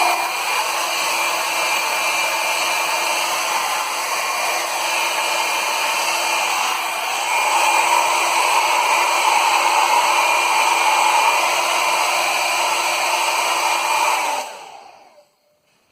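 Hair dryer running steadily, blowing hot air onto heavy-duty Velcro adhesive to soften it. It gets louder about halfway through, then is switched off near the end and winds down with a falling whine.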